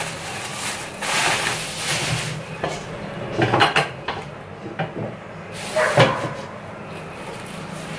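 A plastic bag rustling as a hand rummages in it, followed by a few sharp knocks and clatters of kitchen items being picked up and set down.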